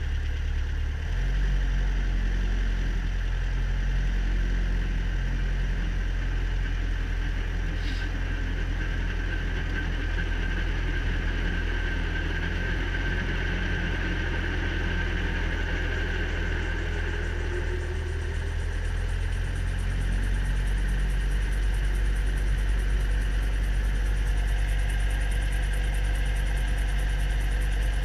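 Robinson R22 helicopter's four-cylinder Lycoming piston engine running steadily during start-up, heard from inside the cockpit. It grows a little louder about twenty seconds in.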